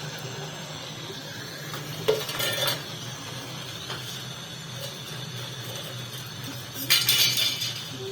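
Metal parts or tools clinking and rattling in two short bursts, the second near the end and louder, over a steady low hum.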